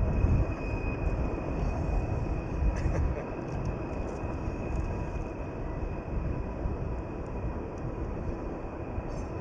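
Wind rumbling on the microphone: a steady low roar that swells and eases in gusts.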